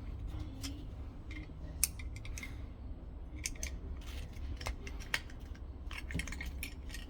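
Scattered sharp plastic clicks and small snaps from prying open the clipped plastic housing of a Kaadas S500 smart lock, over a steady low hum.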